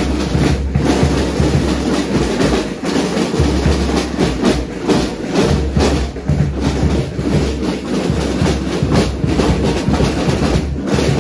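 A marching drum corps of snare drums with a bass drum playing a continuous rapid marching rhythm.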